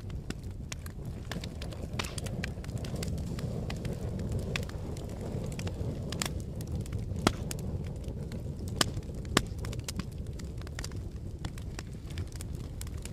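Fire crackling: a steady low rumble of flames with irregular sharp pops and snaps, three louder pops near the middle.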